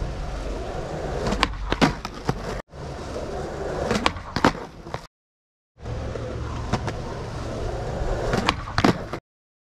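Skateboard wheels rolling on a hard court surface, broken three times by a sharp clack of the tail popping followed about half a second later by the clack of the board landing: kickflip attempts on flat ground.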